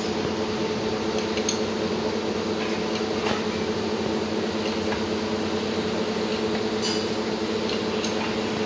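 Steady hum of machinery running in a metal workshop, with a few light metallic clinks as steel parts are handled.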